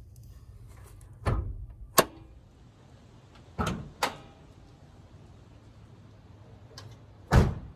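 Several knocks and thuds from a 1995 Honda Civic's body hardware, of the kind a car door or latch makes: a thud and a sharp click in the first two seconds, two thuds about half a second apart in the middle, and a louder thud near the end.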